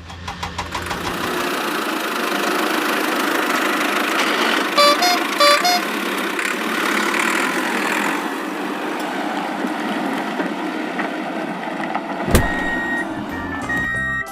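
A vehicle engine running steadily, with four short beeps of a horn about five seconds in. A click near the end, then a cheerful electronic tune begins.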